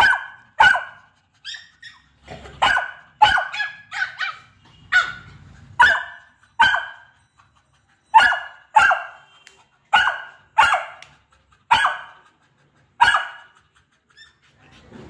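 Beagle barking repeatedly: about sixteen short, sharp barks at an uneven pace, with a brief pause about halfway through and the last faint one near the end.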